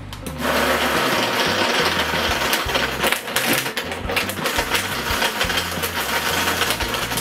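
Hamilton Beach Professional blender starting up about half a second in and running at high speed on its smoothie program, blending fruit and ice. Frequent sharp clicks run through the steady motor noise as ice hits the jar.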